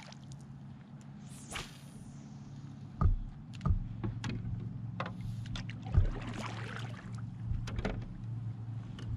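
Kayak fishing sounds: a rod swishing through a cast about a second and a half in, then three sharp knocks against the kayak hull and small scattered clicks over a steady low hum.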